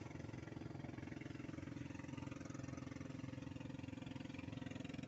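A small engine running steadily at an even speed, a continuous drone with a rapid, even putter.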